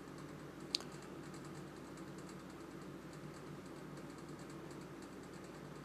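Quiet room noise with a steady low hum and faint light ticking, and one sharp click less than a second in.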